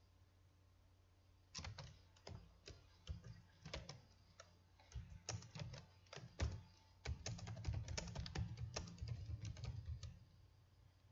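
Typing on a computer keyboard: a run of irregular key clicks that starts about a second and a half in and stops near the end.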